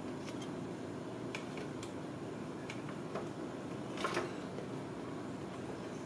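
Light scattered clicks and taps as kittens climb on and paw at a plastic toy car and its door, with a louder short clatter about four seconds in, over a steady low room hum.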